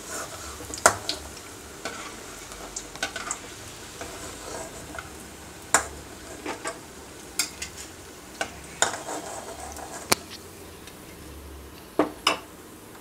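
Banana-flower vadai sizzling in hot oil in an aluminium kadai, with a metal slotted skimmer clinking and scraping against the pan as the cooked vadai are lifted out. A steady hiss runs underneath scattered sharp knocks; the loudest come about a second in, near six and ten seconds, and twice in quick succession near the end.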